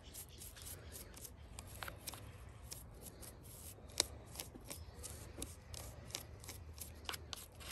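Brush scrubbing oily dirt off a chainsaw, heard as a run of short, irregular scratchy strokes and small clicks, with one sharper click about four seconds in.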